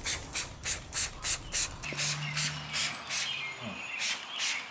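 Rhythmic scrubbing strokes on the aluminum hull of a boat, about three to four a second, as the acid-cleaned metal is worked over. Faint bird chirps sound behind it.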